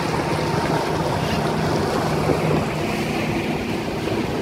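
Motorboat engine running steadily under way, with a low hum, water rushing in the wake, and wind buffeting the microphone.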